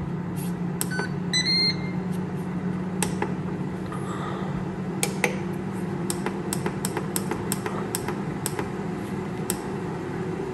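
Air fryer running, its fan giving a steady hum, with a few short electronic beeps from its control panel about a second and a half in and scattered light clicks.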